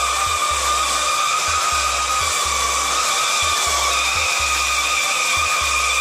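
Steady high whine of an electric walk-behind power trowel's motor as it runs on fresh concrete, over background electronic music with a pulsing bass beat.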